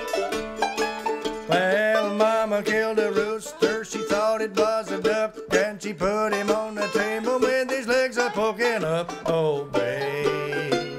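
Banjo and mandolin picking an instrumental bluegrass tune together, a steady stream of quick plucked notes.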